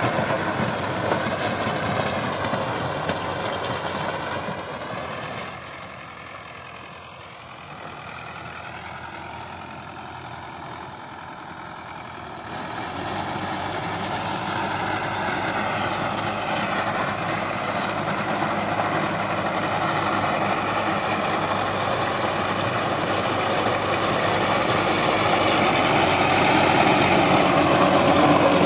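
Sonalika DI 750 III diesel tractor engine running steadily under load while pulling a rotavator through dry soil. A few seconds in it drops quieter for several seconds, then grows steadily louder toward the end as the tractor comes close.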